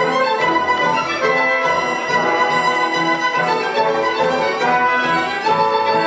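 Symphony orchestra playing a Georgian dance: bowed strings and brass with sustained notes over a regular low pulse about twice a second.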